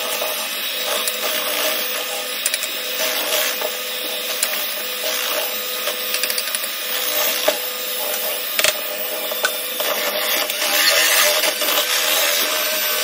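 Electric hand mixer running steadily, its beaters whisking cake batter with a constant motor whine and a few light clicks.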